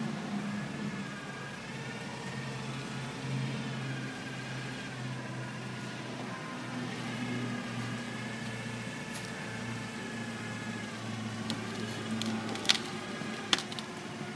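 Toyota forklift's engine running steadily, with a faint whine that slowly wavers in pitch. Two sharp knocks, about a second apart, near the end.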